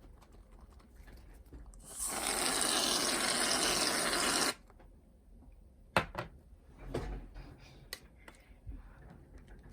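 Aerosol can of shaving foam spraying: a loud, steady hiss that starts about two seconds in, lasts about two and a half seconds and cuts off sharply. After it come scattered short sharp clicks as the foam is mixed into slime.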